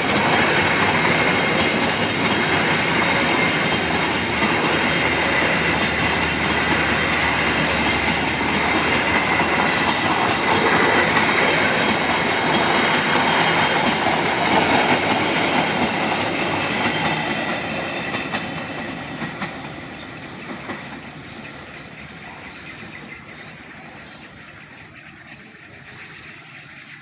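A railway train passing close by, its rolling noise loud and steady, with a thin high squeal running through it. The noise dies away over the last several seconds as the train moves off.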